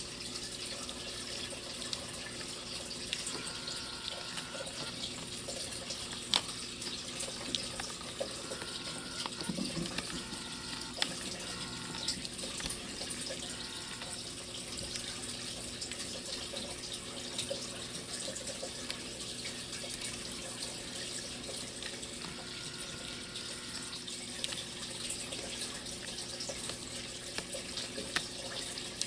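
Young marginated tortoises biting and tearing shredded collard leaves: small crisp crunching clicks, scattered irregularly over a steady hiss.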